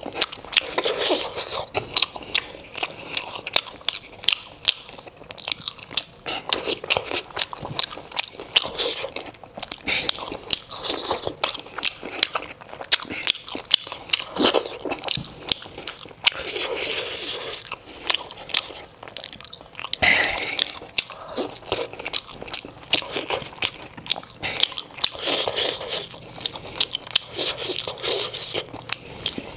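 Close-miked chewing and biting of steamed momos (dumplings): a dense, unbroken run of small clicks and smacks from the mouth.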